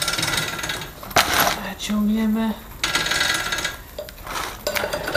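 Roller drive chain of a 110 cc ATV being pulled through over the sprocket, its metal links clinking and rattling in uneven spells, with a sharp clack about a second in.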